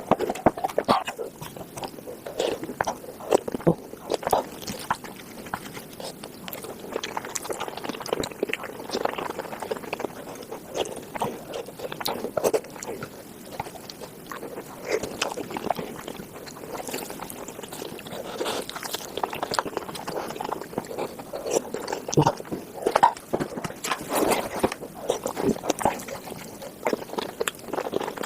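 Close-miked eating of Korean spicy tofu soup, played back sped up: a rapid, unbroken stream of chewing, slurping and wet smacking with small clicks, like spoon or chopstick taps.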